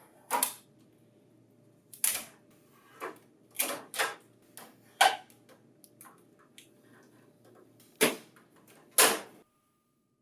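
A run of about eight short, sharp clicks and brief scrapes at irregular intervals, the loudest two near the end: packing tape and plastic pieces being pulled off a printer finisher by hand.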